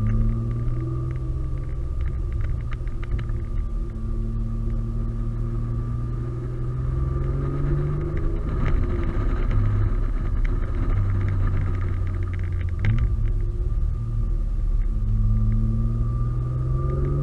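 Single-turbo (Precision 6266) Audi A4 3.0-litre V6 engine heard from inside the cabin, accelerating hard. Its pitch climbs steadily and drops back at each upshift, several times in a row, over a constant low rumble of road and exhaust noise.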